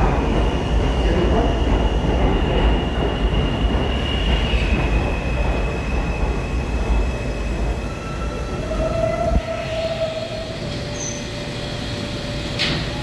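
R211 subway train running on the rails: a heavy low rumble with wheels squealing, several steady high squeal tones shifting in pitch and coming and going. The rumble eases off over the second half.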